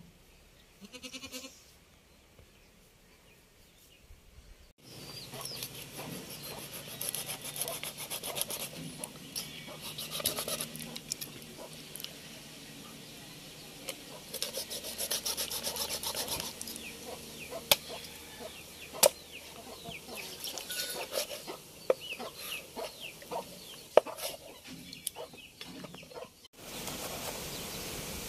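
Kitchen knife sawing and chopping through a large river fish (vaala meen) on a wooden board: rasping strokes as the blade is drawn through flesh and bone, with sharp knocks each time it strikes the board. The cutting starts after a few quiet seconds.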